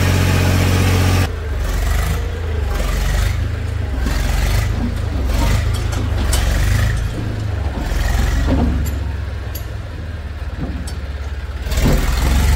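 Diesel engine of heavy earthmoving or farm machinery running. A loud steady note cuts off abruptly about a second in, giving way to a lower rumble that rises and falls, and grows louder again near the end.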